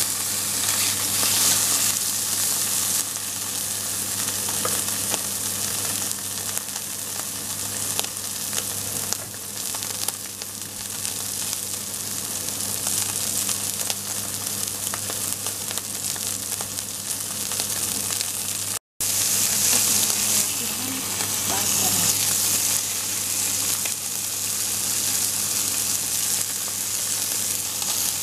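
Steak searing in olive oil in a cast-iron skillet: a steady sizzle, which cuts out for an instant about two-thirds of the way through.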